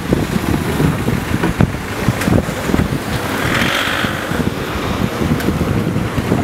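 Riding noise picked up by a bicycle-mounted camera: a steady low rumble of wind and road with irregular knocks. A short hiss comes about three and a half seconds in.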